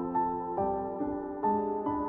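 Background music: soft new-age piece with sustained piano or keyboard notes changing about every half second.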